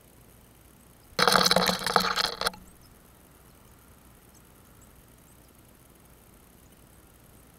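A burst of rapid clicking, scratching and rattling a little over a second long, about a second in: small birds (blue tits and great tits) scrabbling and fluttering on the wire suet feeder right beside the microphone.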